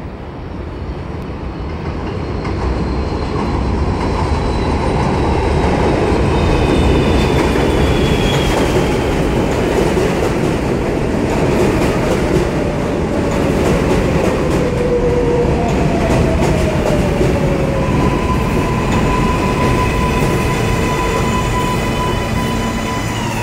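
R143 subway train pulling into an elevated station. It rumbles and clatters over the rails, growing louder over the first few seconds, with a whine that falls in pitch as it brakes. A steady tone sets in about three-quarters of the way through as the train stands at the platform.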